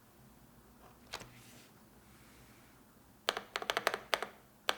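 Typing on a NuPhy Node100 low-profile mechanical keyboard with Red Nano linear switches. A single keystroke comes about a second in, then a quick run of soft key clicks from about three seconds in.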